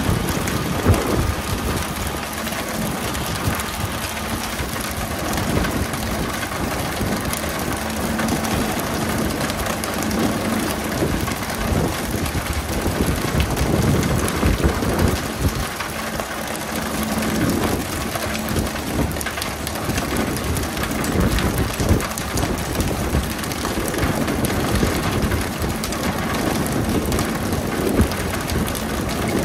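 Steady rain-like hiss of a pole-and-line tuna boat's water sprays and the churned sea, with the boat's engine running underneath. Scattered sharp knocks come through it, the loudest about a second in.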